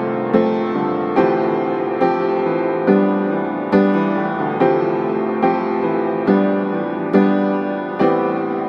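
Background piano music: sustained chords struck at a steady, even pace, a little more than one a second.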